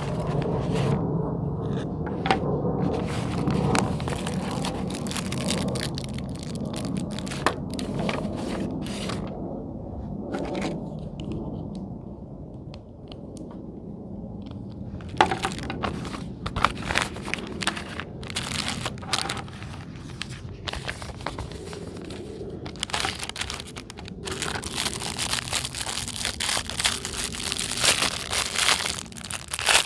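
Plastic packaging crinkling and rustling as it is handled and opened, with scattered sharp clicks. The crinkling gets busier over the last several seconds.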